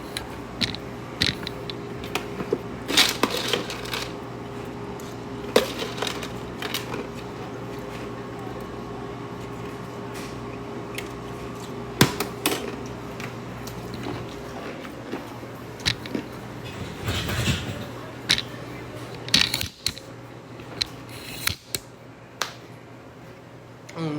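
Scattered clicks, taps and light clatter, as of small objects being handled, over a steady low hum.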